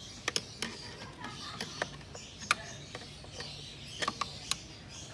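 Flat-blade screwdriver and fingers working fasteners and clips on a car's air intake hose: scattered sharp clicks and taps at an irregular pace, a few close together about four seconds in.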